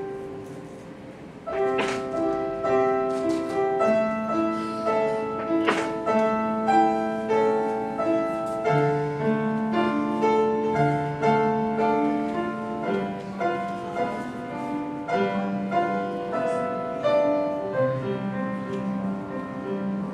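Piano-toned keyboard music: a slow melody of held notes over sustained low notes. A chord fades away first, and new notes start about a second and a half in, with a couple of sharper struck accents early on.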